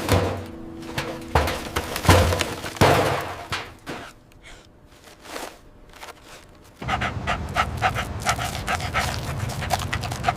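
A dog panting quickly and evenly, starting about seven seconds in. A few thumps come in the first three seconds.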